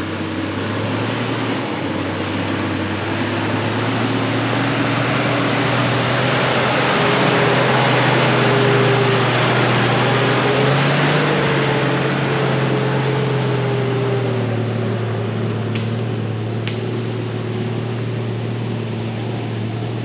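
Toyota Land Cruiser 80 Series engine working under load as the truck crawls up a rutted dirt hill, growing louder as it passes close by about halfway through, then fading slightly as it pulls away.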